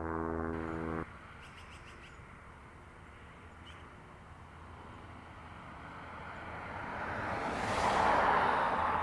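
A steady humming drone cuts off sharply about a second in. Quiet outdoor ambience with a few faint bird chirps follows, then the rushing noise of a vehicle passing by swells from about five seconds and peaks near the end.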